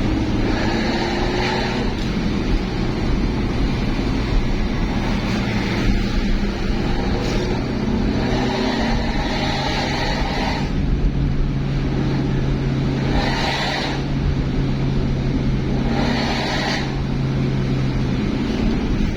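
A road vehicle driving at speed, with steady engine and road noise and a few short, brighter sounds on top at intervals.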